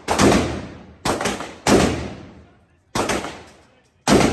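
Single gunshots fired at an irregular pace, about six shots including a quick pair about a second in, each followed by a long echoing decay from the range's walls.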